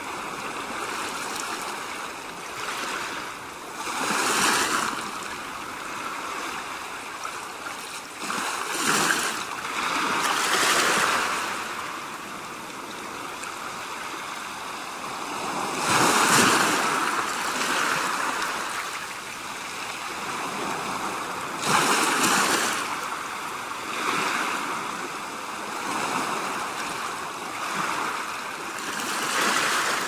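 Sea waves washing in, each swell rising into a rush of surf every few seconds over a steady wash of water.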